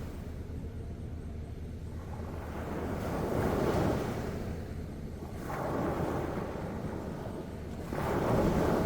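Sea waves breaking and washing in, the rush of water swelling three times: about three and a half seconds in, around six seconds, and again near the end.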